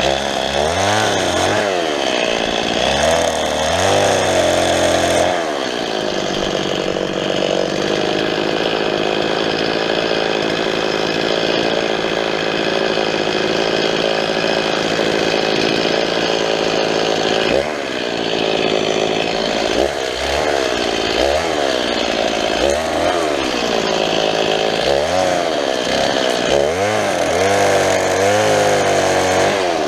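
Two-stroke chainsaw cutting small tree trunks. It revs up and down in quick throttle blips for the first few seconds, is held at steady high speed for about ten seconds, then goes back to repeated revving from about two-thirds of the way through.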